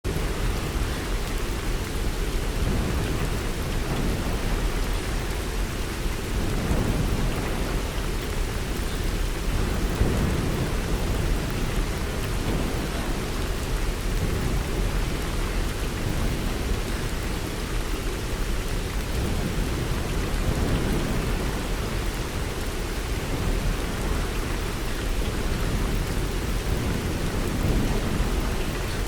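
Steady rain falling through forest, a dense even hiss over a constant low rumble.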